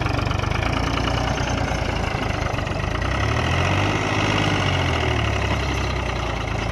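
Mahindra 265 tractor's three-cylinder diesel engine running under load as it pulls a tine cultivator through the soil. Its note swells and eases a few seconds in.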